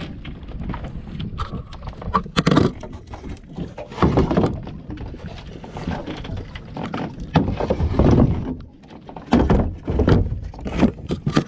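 Irregular knocks and thumps against the wooden hull of a small outrigger fishing boat, with rubbing and handling noise, as gear and hands move against the boat's side.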